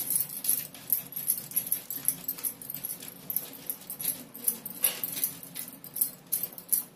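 Firm khoya (mawa) rubbed on a stainless-steel box grater over a glass bowl: quick, repeated scraping strokes, a couple a second.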